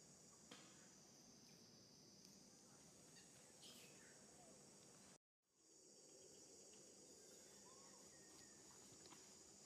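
Faint outdoor ambience: a steady high-pitched insect drone, with a few soft clicks and rustles. The sound cuts out completely for a moment about halfway through.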